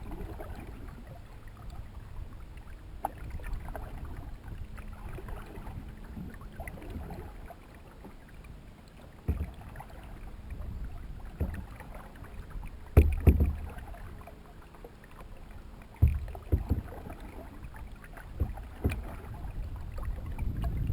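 A canoe being paddled: paddle strokes in the water with several sudden dull knocks against the canoe, over a steady low rumble.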